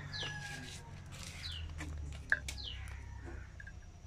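A bird calling over and over, short high notes that slide downward, about once a second. A sharp click comes a little past halfway, over a steady low hum.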